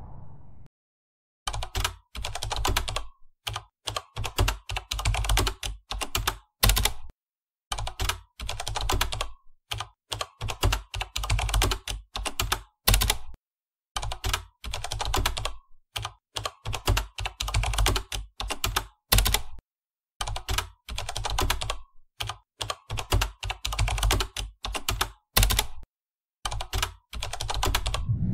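Computer keyboard typing sound effect: runs of rapid key clicks broken by short pauses, starting about a second and a half in.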